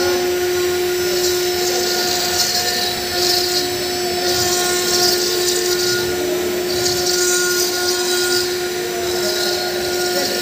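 Black Smith KS-1325 CNC stone carving machine at work: its spindle runs with a steady high whine while the cutter works the stone slab, adding hissing bursts that come and go every couple of seconds.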